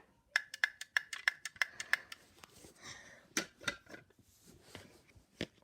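Schindler M-series elevator push buttons being pressed and clicked repeatedly at an uneven pace. A faint, steady high tone sounds for the first couple of seconds.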